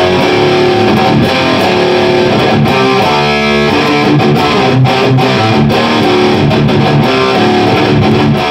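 Distorted electric guitar played through an Orange Dark Terror tube amp head in its 15-watt mode: continuous, loud chords and riffs. The playing shows the amp working again after its repair.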